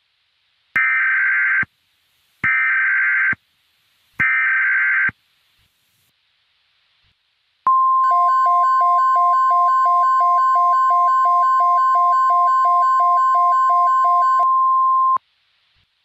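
Emergency Alert System SAME header: three short bursts of screeching digital data, followed by the NOAA Weather Radio warning alarm, a long steady tone near 1050 Hz with a beeping pattern of about three beeps a second over it, which stops shortly before the tone. It signals that a tornado watch message is about to be broadcast.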